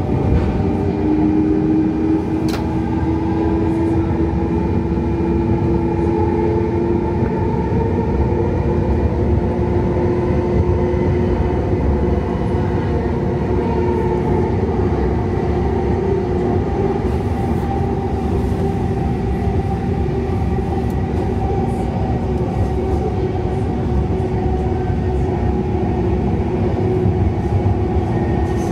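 Siemens S70 light rail train running between stations, heard from on board: a steady rumble of wheels on track with an electric motor whine that rises slowly in pitch over the first half, then holds.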